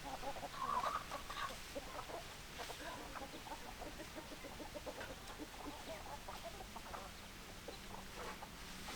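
Chickens clucking: many short clucks overlapping throughout, with a louder burst of calls about a second in.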